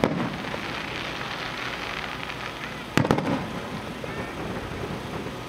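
Aerial fireworks going off: a sharp bang right at the start and another about three seconds in, with a crackling hiss from the spreading sparks in between.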